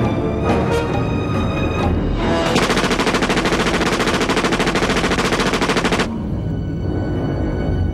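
Rapid automatic-weapon fire in one long burst of about four seconds, starting about two seconds in and cutting off abruptly, over a dramatic film score; a few scattered shots come before it.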